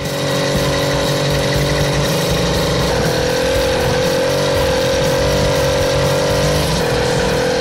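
Two-stroke motorized-bicycle engine running steadily while the bike is ridden, its pitch rising slightly about three seconds in and dropping a little near the end.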